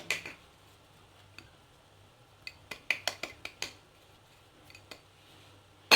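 Spoon clinking and tapping against a mixing bowl while ingredients are spooned in. It makes scattered light clicks, with a quick cluster of them around the middle.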